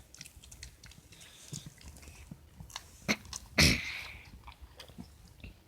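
A dog chewing and crunching Skittles candy, with scattered small clicks and crunches from its mouth. There is one louder, short, noisy sound a little past halfway.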